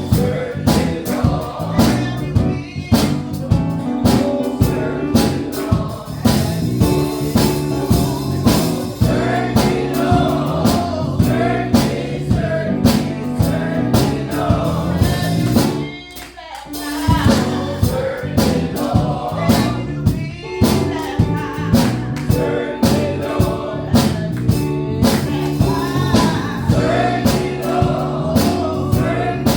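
Gospel music: group singing over instruments with a steady beat, briefly dropping out about halfway through.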